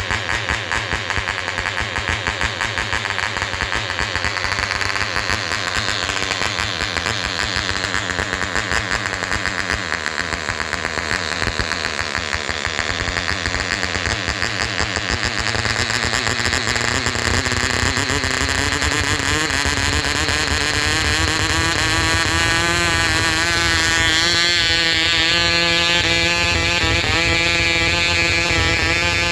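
Webra 2.5 cc model engine running on a test after a rebuild, uneven at first, then rising steadily in pitch through the second half as it speeds up.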